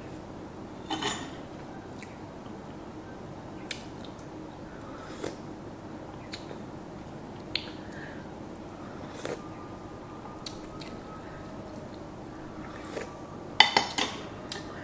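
Eating sounds: a metal spoon clinking and scraping against a ceramic bowl of noodle soup, with chewing in between. There is a louder clatter about a second in and again near the end.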